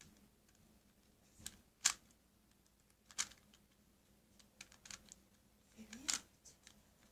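A few sparse, faint plastic clicks from a Rubik's cube being handled and turned, the clearest about two seconds in and another just after three seconds.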